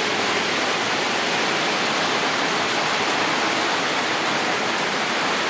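Heavy rain pouring down, a dense, even hiss that stays steady throughout.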